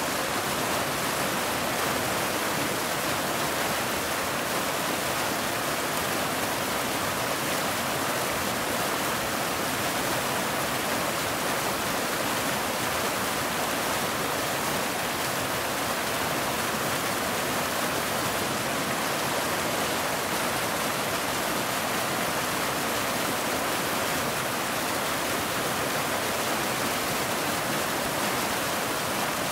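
Waterfall: water falling and splashing in a steady, even rush with no pauses.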